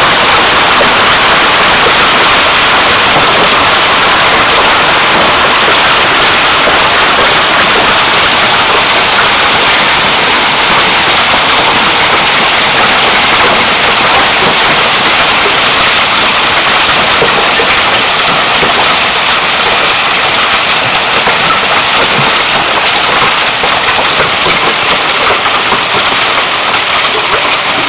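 Hailstorm: hail and rain pelting down in a loud, dense, steady patter that eases slightly near the end.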